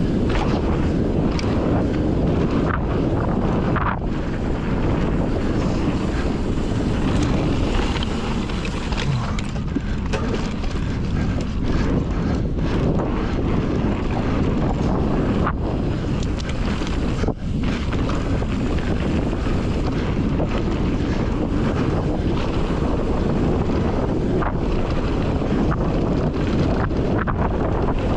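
Wind buffeting the camera's microphone on a fast mountain-bike descent, a steady loud rush, with the Fezzari La Sal Peak's tyres rolling over the dirt trail and scattered clicks and knocks from the bike over bumps.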